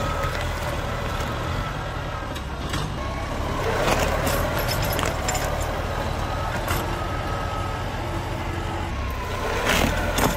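Tractor engine running steadily under load while its rear disc plough churns soil and roots, with occasional short cracks and knocks, the loudest near the end.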